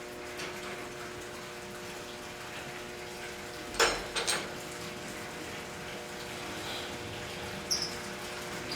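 Steady machinery hum with a hiss in a boiler room. About four seconds in come a few sharp knocks, with a couple of lighter ones near the end.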